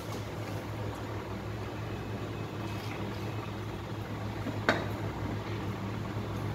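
Steady low hum and hiss of background noise, with one sharp knock about three-quarters of the way through.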